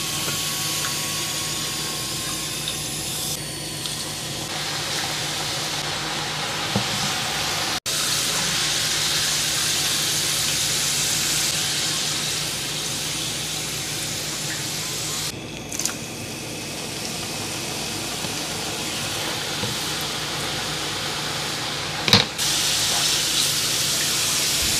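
Potato fries frying in hot oil in a cast iron skillet: a steady sizzle as they are turned with a slotted spoon, with a brief sharp knock near the end.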